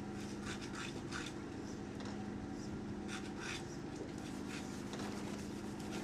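Fly line being stripped in by hand over a boat's gunwale: a run of short, faint rubbing strokes at an uneven pace, over a steady low hum.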